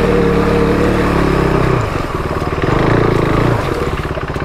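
KTM RC 390 single-cylinder motorcycle engine running steadily on throttle, then dropping to a lower, pulsing rumble about two seconds in as it slows. There is a brief rise in revs around three seconds before it settles back.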